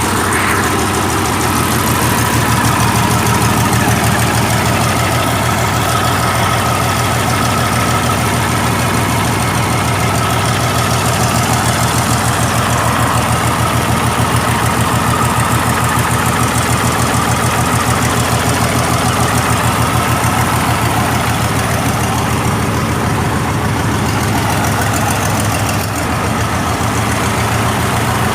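Mitsubishi 6D14 six-cylinder diesel engine of a 75 kVA generator set running steadily, just after its overhaul, with an even, unchanging beat and a faint steady whine above it.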